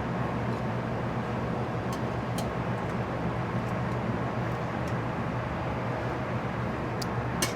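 Steady kitchen background hum and rushing noise, with a few light clicks about two seconds in and again near the end.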